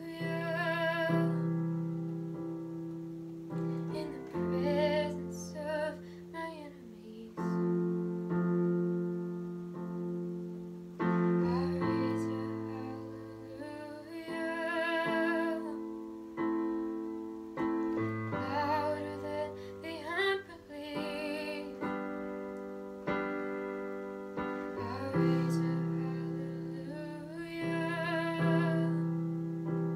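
Slow piano music: chords struck every couple of seconds and left to fade, with a woman singing long, wavering notes over them.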